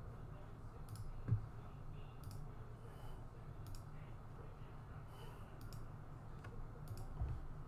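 Faint scattered clicks of a computer mouse and keyboard over a low steady hum, with one louder thump about a second in.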